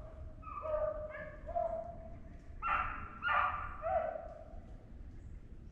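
Hunting beagles baying in a run of drawn-out, overlapping bawls, the sound hounds make when trailing a rabbit. The calls stop about four seconds in.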